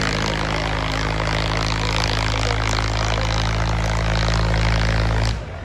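Diesel tractor engine running loudly at a steady pitch, its drone unchanged until it cuts off suddenly near the end.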